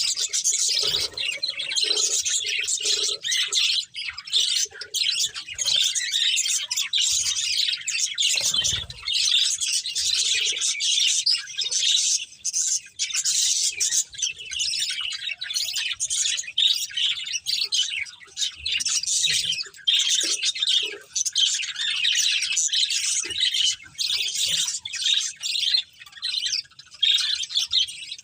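Budgerigars chirping and chattering continuously, a dense flock-like warble of rapid high chirps, with a short low thump about eight seconds in.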